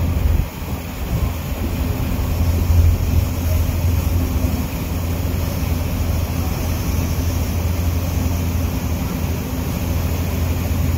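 Passenger ferry's engine running steadily, a constant low drone with no change in pitch.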